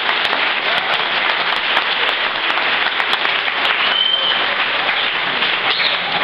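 Audience applauding steadily, many hands clapping, with a brief high tone about four seconds in.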